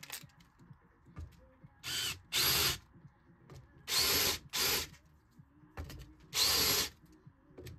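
Bosch cordless drill-driver running in five short bursts, each under a second, some with a brief rising whine, as it drives bolts into a steel fixture.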